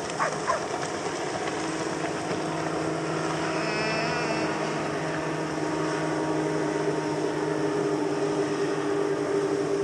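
Outboard motors of a fleet of fishing boats running at speed across the river, a steady droning hum that comes in after a second or two and holds.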